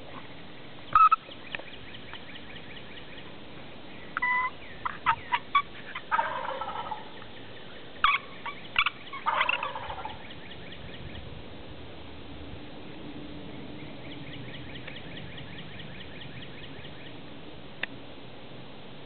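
Wild turkey gobbler gobbling: several loud rattling gobbles in the first ten seconds, the longer ones falling in pitch, then quiet woods.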